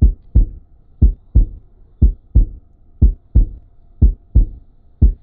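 Heartbeat sound effect: six deep double thumps, lub-dub, one pair about every second.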